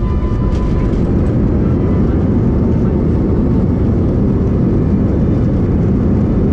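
Steady loud rumble heard inside the cabin of an Airbus A321-200ceo as it rolls out along the runway just after landing: engine and wheel noise while the jet slows.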